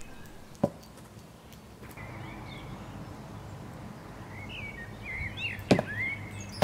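Garden birds chirping and singing, with two sharp thumps, a light one under a second in and a louder one near the end.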